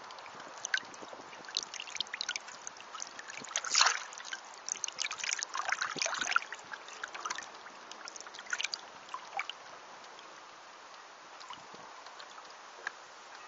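Water splashing and trickling against the hull of a Mini 40 radio-controlled hydrofoil trimaran under way, with crackles of spray that come thickest in the middle and ease off after about nine seconds.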